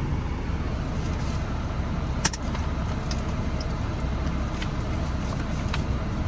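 Steady road and engine rumble heard inside the cabin of a Mercedes-Benz R350 4matic on the move, with a sharp click a little over two seconds in and a few fainter clicks after.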